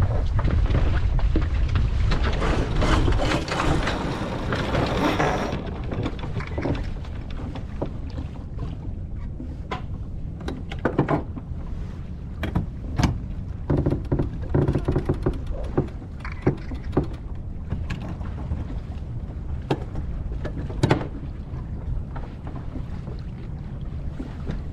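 Wind buffeting the microphone and water noise aboard a sailboat under way, loudest for the first five seconds or so and then easing to a steady low rumble, with scattered sharp knocks and clicks.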